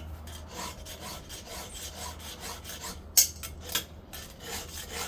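Chainsaw file worked by hand across the cutting teeth of a saw chain: a run of rasping file strokes, with two sharper, louder strokes a little past halfway.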